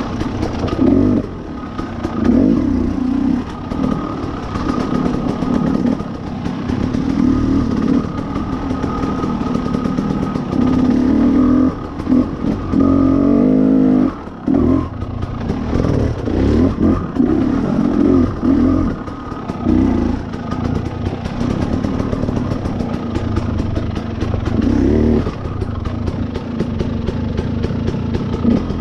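Two-stroke dirt bike engine ridden over rough trail, the throttle blipped on and off again and again so the revs keep rising and falling, with one longer climb in revs about halfway through followed by a brief drop.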